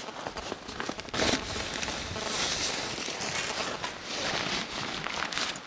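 Rustling of a nylon winter suit and fishing gear being shifted about, with scattered clicks and knocks and a louder knock about a second in.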